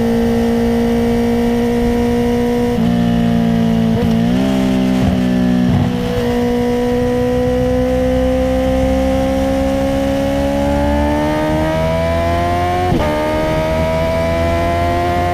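Honda CBR650R's inline-four engine through an Akrapovic titanium exhaust with no dB killer, heard from the moving bike. It holds a steady pitch, breaks briefly a few times around four to six seconds in, then rises slowly under acceleration, with a quick dip about thirteen seconds in as the gear changes.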